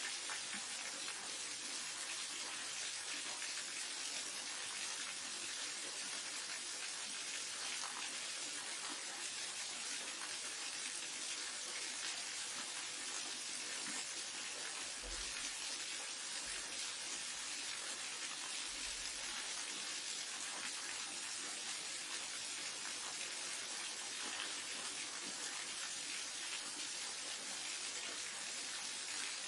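Waterfall: a steady, hissing rush of falling water that does not let up.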